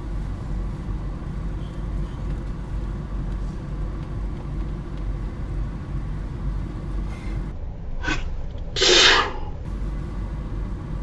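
A man sneezes once about eight seconds in, a quick sharp catch of breath and then the loud sneeze, over the steady low rumble of a car cabin.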